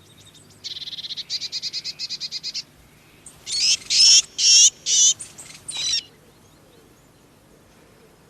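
Blue tits calling: a fast run of short, high buzzy notes for about two seconds, then five or six loud, high calls that waver in pitch.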